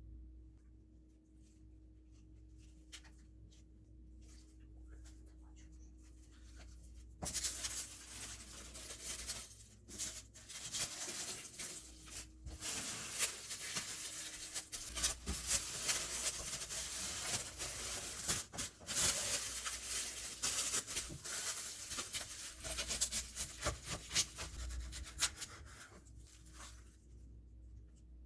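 Scratchy rubbing and rustling of paper with many small crackles, as of sandwich wrapping paper being handled. It starts suddenly about seven seconds in and stops shortly before the end, after a few faint ticks.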